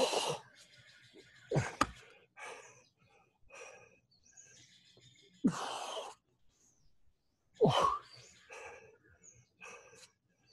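A man breathing hard through a set of push-ups: four loud, sharp exhalations a couple of seconds apart, with quieter breaths between.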